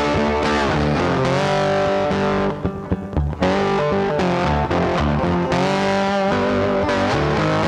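Background rock music led by electric guitar, with long held notes that bend in pitch; it thins out briefly near the middle.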